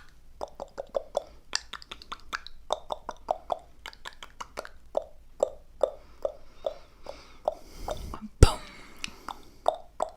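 Close-miked ASMR pops and clicks coming several a second in an irregular stream, with one louder knock and crackle about eight seconds in.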